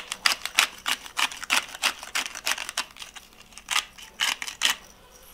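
Hand pepper grinder being twisted, grinding peppercorns in a quick run of gritty rasps, about four a second, that thins out and stops near the end.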